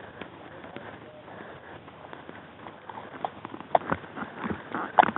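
Footsteps on a dirt road, with irregular sharp clicks and knocks that start about three seconds in and grow louder toward the end.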